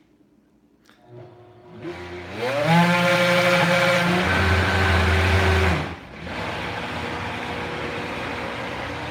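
High-powered countertop blender blending a thick chocolate avocado mousse. The motor winds up in pitch over about a second, runs loud and steady, then about six seconds in drops in level and keeps running as a quieter, duller whir.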